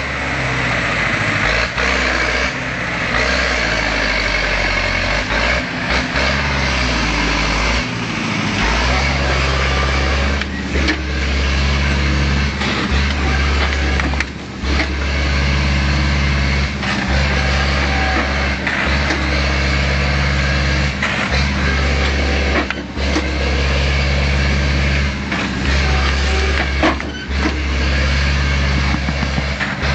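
Tractor engine running steadily under load, its note shifting up and down in steps, with occasional short knocks.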